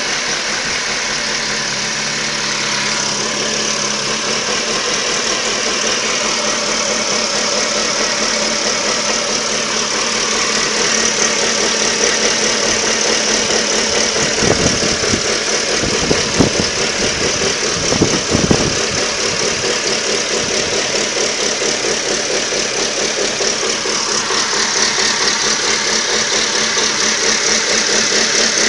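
Ford Focus 2's 1.6-litre 115 hp four-cylinder petrol engine running at idle, an engine worn enough to be due for a capital overhaul. A few dull thumps come in about halfway through.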